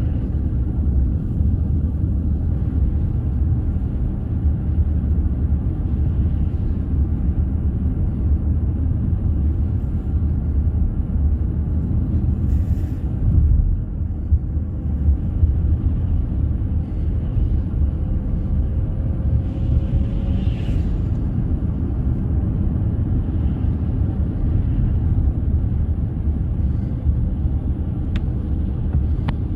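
A steady low rumble of noise, heaviest in the bass, with a faint thin tone drifting slightly upward about two-thirds of the way through.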